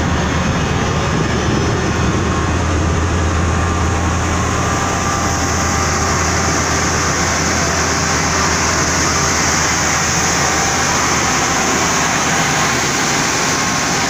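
Metrolink diesel locomotive's engine idling up close, a steady loud low drone under a broad hiss. A higher hiss grows louder about five seconds in.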